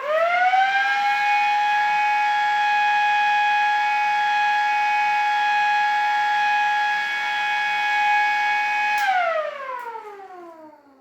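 Mini motor-driven siren winding up quickly to a steady wail, holding for about eight seconds, then cut off with a click and winding down in a long falling glide.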